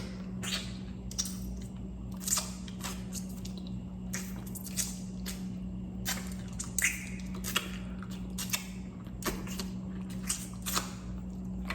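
Close-up eating sounds: irregular cracks, crunches and wet squishes of food being torn apart by hand and chewed, over a steady low electrical hum.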